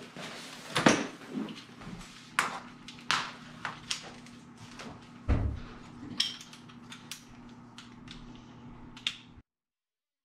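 Scattered clicks, knocks and rustles of an oscillating multi-tool and its soft carrying case being handled, with one duller thump about five seconds in. The sound cuts off abruptly near the end.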